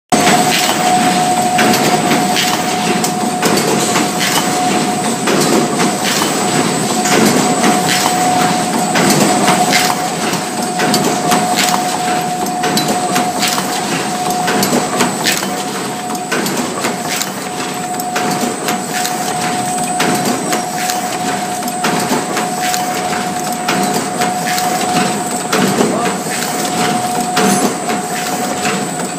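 Paper bowl forming machine running: continuous rapid mechanical clattering and knocking, with a steady tone held throughout.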